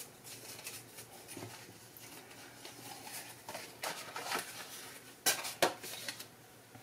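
Pieces of cardstock and paper being gathered up and stacked by hand: soft rustling and sliding of paper with a few light taps, the loudest two about five seconds in.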